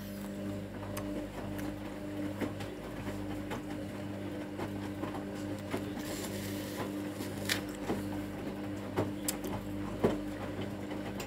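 Hotpoint WMA 30 washing machine's drum motor running with a steady hum as the drum turns the load during the final rinse, with scattered knocks and splashes of the wet clothes tumbling and falling. The hum stops after about eleven seconds, as the drum pauses between turns.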